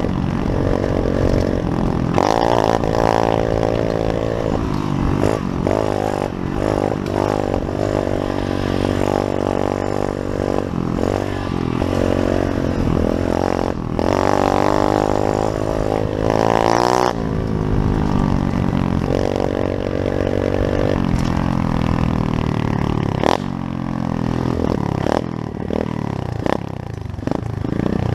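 Pit bike's small single-cylinder four-stroke engine running under load while being ridden, its revs rising and falling with the throttle, with a sharp climb in revs about seventeen seconds in and then a drop. Occasional knocks and clatter.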